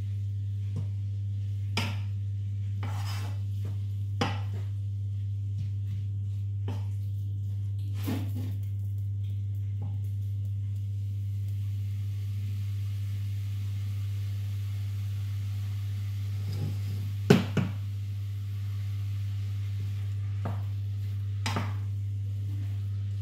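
Wooden spoon stirring mince in a metal pot, with occasional knocks of the spoon against the pan, the loudest a quick pair about 17 seconds in, over a steady low hum.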